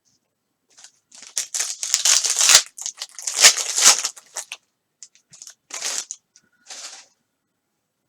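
Plastic card-pack wrapper crinkling and tearing in a run of crackling bursts, loudest in the first half, followed by a few lighter crinkles near the end.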